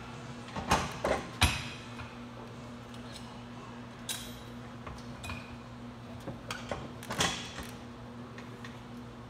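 Metal clanks and clicks from a lat pulldown machine's weight stack, in three groups: a few knocks about a second in, one around four seconds and another cluster about seven seconds in. A steady low hum runs underneath.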